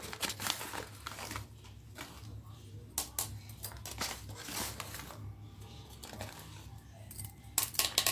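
Spoonfuls of gram flour being scooped and tipped into a mixer-grinder jar: soft scraping and rustling with scattered light clicks and taps of the spoon, and a cluster of sharper taps near the end.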